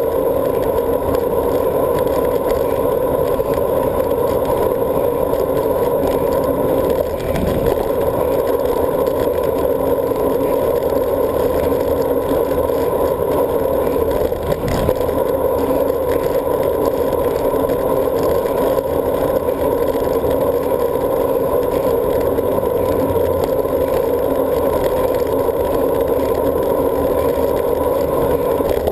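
Steady rush of wind and tyre noise from a road bike moving fast along a bridge's paved bike path, heard muffled through a handlebar-mounted GoPro housing. Two brief knocks, about 7 and 15 seconds in, break the rush.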